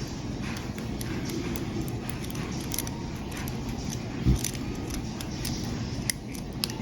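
Lock pick and tension tool working inside a Master Lock padlock: many small, irregular metallic clicks and scrapes as the pins are raked. A single duller knock about four seconds in.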